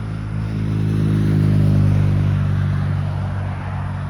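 Motorcycle passing by on the street, its engine drone growing louder to a peak about two seconds in and then fading away; no horn is sounded.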